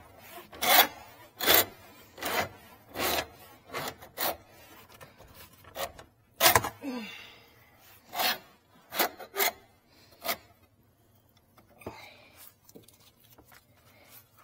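Short rasping scrapes from hand work on the sink's drain pipes, coming about one every three-quarters of a second, then thinning out to a few fainter scrapes near the end.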